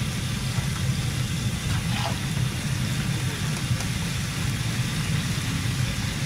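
Fish deep-frying in a large wok of hot oil: a steady sizzle, over a constant low rumble.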